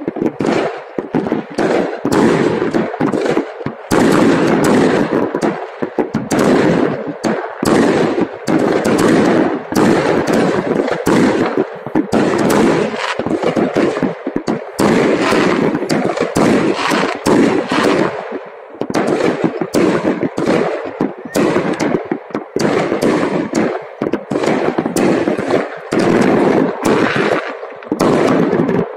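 Many fireworks going off at once from several launch points, a loud, dense and unbroken barrage of overlapping bangs and pops.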